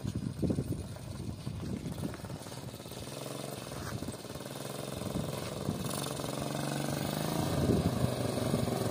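Small 50 cc motorcycle engine running as it rides closer, growing steadily louder from about three seconds in.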